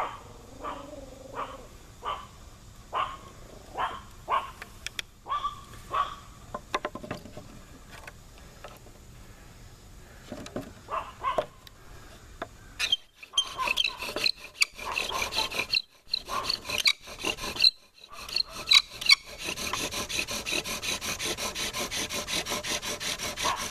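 Bow drill at work: the wooden spindle rasps and squeaks as it turns in the fireboard's notch while the bow is sawn back and forth. It is scattered and stop-start at first, then fast and even in the last few seconds as the friction brings the hearth to smoke.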